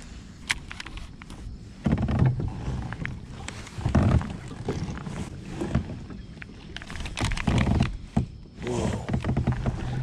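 Low rumbling gusts of wind and water noise around a kayak, coming in several bursts. Near the end a big fish splashes at the lure; the angler takes it for a spooked carp rather than a fish striking.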